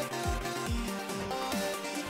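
Electronic dance music with a steady kick drum beat, about two beats a second, under sustained synth chords.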